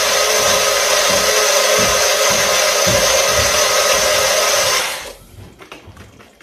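Personal bullet-style blender running steadily as it blends popsicle pieces and syrup, then cutting off about five seconds in. Faint clicks follow as the jar is handled on the base.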